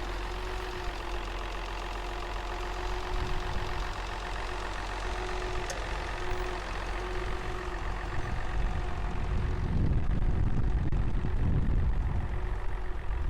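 Farm tractor engine running steadily at idle, with a single sharp click about six seconds in; from about ten seconds the low rumble grows louder.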